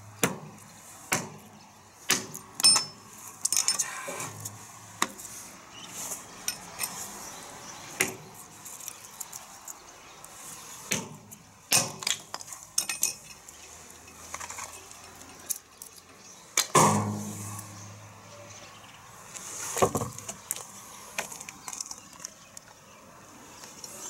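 A small camping hatchet knocking into and splitting sticks of kindling on a chopping block: irregular sharp knocks and cracks, a few of them much louder.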